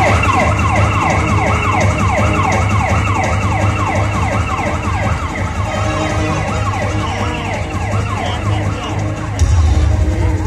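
Siren sound effect played over a stage loudspeaker system, a fast falling wail repeating about three times a second and fading out. Just before the end, loud music with heavy bass comes in.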